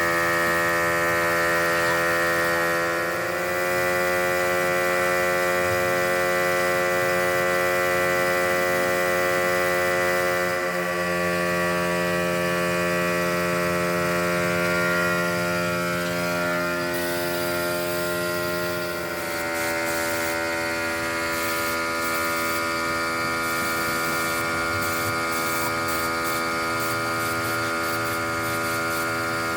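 A steady electric machine hum made of many tones, shifting slightly in pitch twice.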